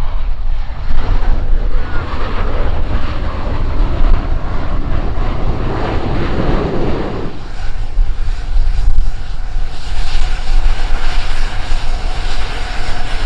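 Airplane engine noise, loud and continuous, with a brighter high-pitched part coming up about ten seconds in.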